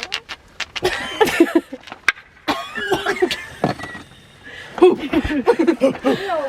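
People making wordless grunts, hoots and squeals in imitation of cavemen, broken by laughter.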